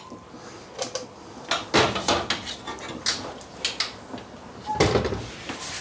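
Clicks and knocks of a Greystone RV range's oven door being opened and handled, with heavier thumps about two seconds in and again a little before the end.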